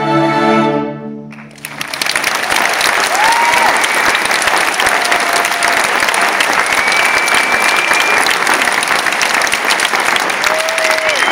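A student string orchestra's final held chord rings and cuts off about a second and a half in, then the audience breaks into steady applause with a few whistles.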